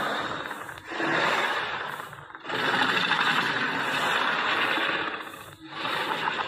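Tyrannosaurus rex roar sound effect: a series of long, rough roars, broken by short pauses about a second, two seconds and five and a half seconds in.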